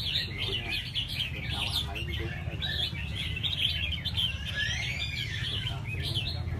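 Caged red-whiskered bulbuls singing together in a dense run of quick, chirpy phrases, with one longer arching whistle about four to five seconds in. A low steady rumble runs underneath.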